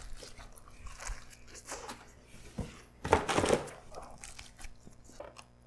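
A person biting into a folded slice of layered pizza and chewing it. There is a bite right at the start and a cluster of crackling, crunching chews about three seconds in.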